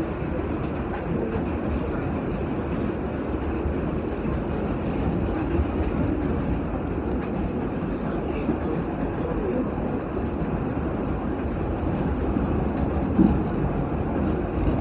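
Inside an R46 subway car running at speed: a steady rumble of wheels on rail with a few faint clicks, and one louder clack near the end.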